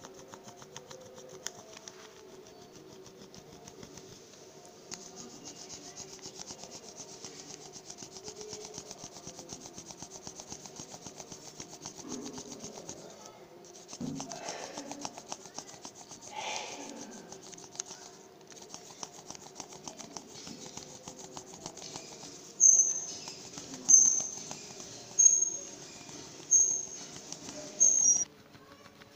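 Coloured pencil scratching over paper laid on a leaf: quick, light back-and-forth shading strokes making a leaf rubbing. Near the end, five short high-pitched tones, a little over a second apart, are the loudest sound.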